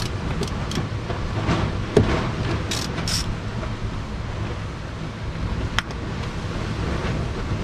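Small metallic clicks and scrapes of a Torx T30 bit being turned by hand to undo a 12-volt battery's terminal bolt, over a steady low rumble. A sharp tap near the end as the tool is laid on the concrete floor.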